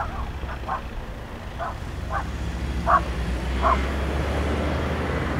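A small dog yipping, about seven short barks in the first four seconds, over the low rumble of a vehicle engine that grows louder in the second half.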